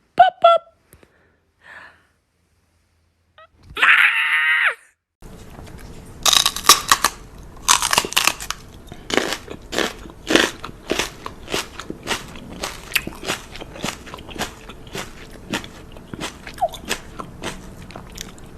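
A dog chewing and crunching something hard, with sharp crunches at an uneven pace of one to a few a second, starting about five seconds in. Before that comes a short pitched call lasting about a second.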